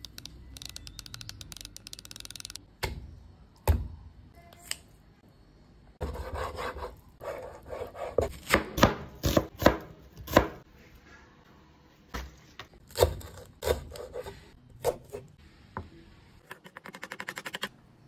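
Kitchen knife slicing an onion on a wooden cutting board: a run of uneven chopping strokes through the middle. A quick, fine crackling comes near the start and again near the end.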